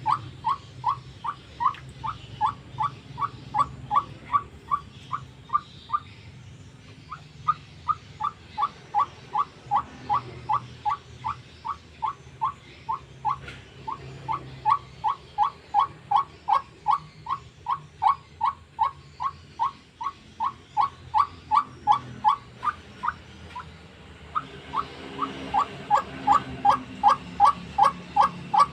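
White-breasted waterhen (ruak-ruak) calling: a long run of short repeated notes at about three a second, pausing briefly a few times.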